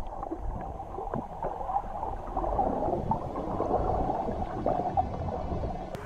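Muffled water gurgling and sloshing picked up by a camera held underwater, dull with almost nothing above the low range.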